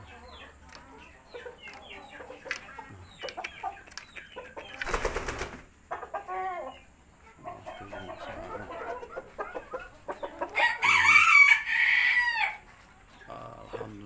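Chickens clucking, then a rooster crowing once for about two seconds, starting around ten and a half seconds in; the crow is the loudest sound. A brief burst of noise comes about five seconds in.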